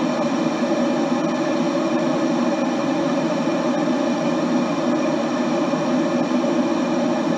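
Water boiling in a kettle: a steady, even rushing noise with no breaks or changes in level.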